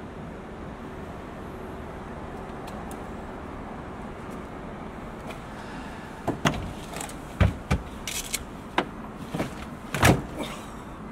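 Steady background hum, then from about six seconds in a run of clunks and knocks as a car's hatch and rear interior are opened and handled, the loudest thud about ten seconds in.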